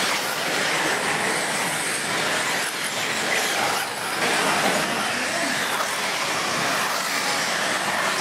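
Radio-controlled off-road cars racing on a dirt track, their motors and tyres making a steady, continuous whirring hiss.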